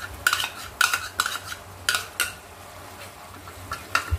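Kitchen utensils knocking and scraping: a metal spoon scrapes homemade cream out of a ceramic bowl into a non-stick kadai, then a wooden spatula starts stirring it into the sauce. About half a dozen sharp clicks and knocks come in the first couple of seconds, and one more comes near the end.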